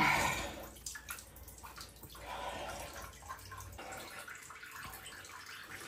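Faint dripping and trickling of water in a bathtub.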